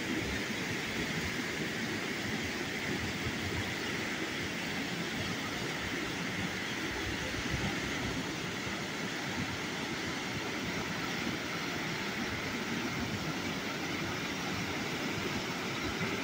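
Rioni River in flood after rain: swollen, muddy water rushing steadily over rocks, a constant even rush with no breaks.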